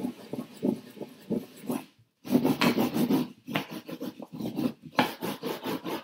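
Paper being hand-burnished onto an inked printing block with a small glass paperweight: quick back-and-forth rubbing strokes with a dry rasp, several a second, pausing briefly about two seconds in.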